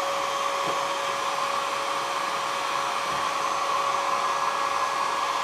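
Handheld hair dryer running steadily on its low setting: an even rush of air with a steady hum.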